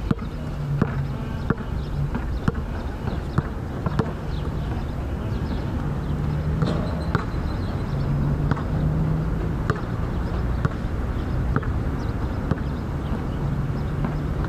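Basketball bouncing on a hard outdoor court, sharp thuds coming in a steady rhythm about once or twice a second, over a steady low engine hum.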